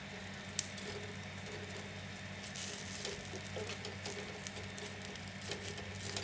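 Banana-leaf parcels of rice being turned by hand in a hot frying pan: leaves rustling and crackling faintly, with a few light clicks as they are set down, over a steady low hum.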